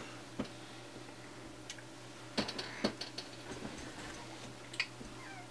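Scattered light clicks and taps of small tools being handled at a soldering bench, over a faint steady hum.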